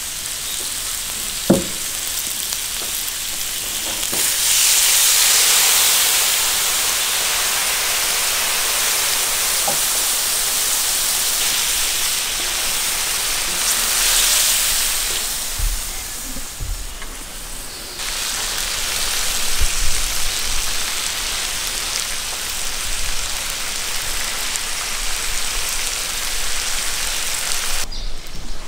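Kidneys and onions sizzling on a hot steel disc pan. Liquid poured from a clay jug makes the sizzle swell loudly about four seconds in, and a spatula scrapes and turns the meat. A sharp knock comes about a second and a half in.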